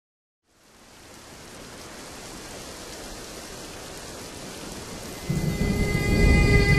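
Rain hiss fading in and steadily growing, then a low rumble of thunder about five seconds in, as held musical tones come in over it.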